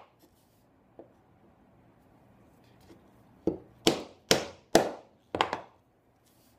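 A brass-headed mallet striking the handle of a wide bench chisel as it chops down along the knife line of a routed dado. There is one light tap about a second in, then from about three and a half seconds a run of about five sharp strikes, roughly two a second, the last a quick double.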